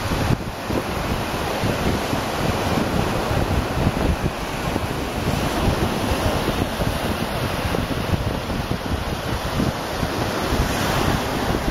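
Wind buffeting the microphone in a steady, fluttering rumble over the rush of surf.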